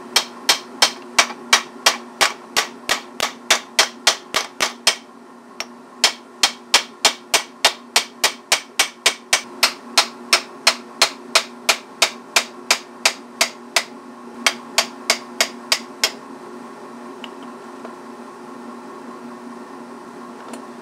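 Hammer striking a steel socket set over a refrigerator compressor's crankshaft, metal on metal, about three sharp blows a second in three runs with short pauses near 5 and 14 seconds, driving the shaft out of its ball bearing; the blows stop a little past the middle.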